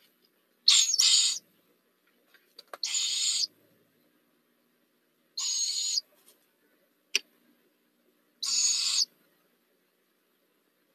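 Barred owl owlets giving raspy, hissing begging calls, each about half a second long: four in all, roughly every two and a half seconds, the first one doubled. A single sharp click comes about seven seconds in.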